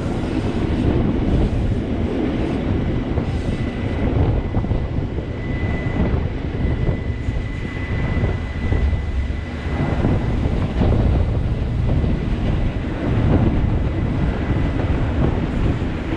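Rhaetian Railway ABe 8/12 electric train running downhill, a steady rumble of wheels on rail heard from the carriage window. Near the middle a faint thin high squeal holds for a few seconds as the wheels take a tight curve.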